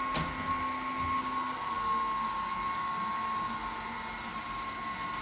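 Robot vacuum cleaner running with a steady whining motor hum; its lower hum drops slightly in pitch under two seconds in.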